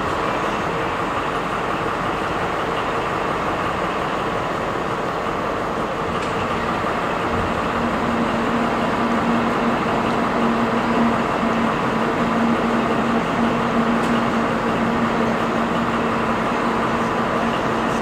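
Diesel locomotive's MTU 4000 engine idling steadily while the locomotive stands still. A low steady hum joins in about halfway through.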